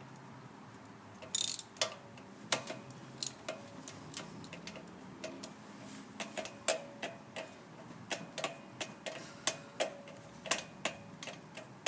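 Irregular light metallic clicks, a few per second and quickening in the second half, from hand tools at work in a car's engine bay during a spark plug change, with one brief loud hiss about a second and a half in.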